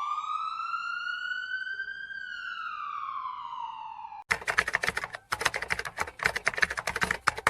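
A single siren wail that rises for about two seconds, falls, and cuts off suddenly a little past four seconds in. It is followed by rapid, irregular, sharp clicking that stops briefly once and then goes on.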